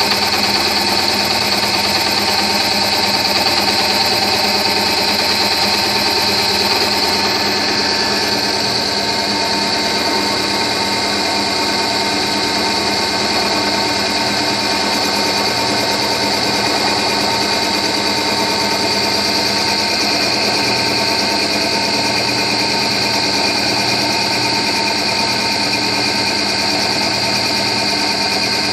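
Emco Compact 5 CNC benchtop lathe running, a steady mechanical whirr of its spindle drive with a high steady whine over it.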